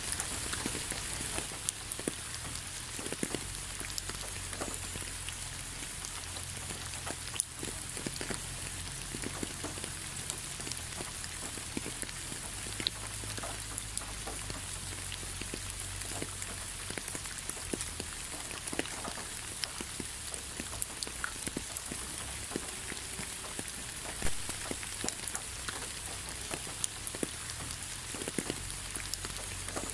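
Steady rain falling: an even hiss with many separate drops landing close by, a few of them louder now and then.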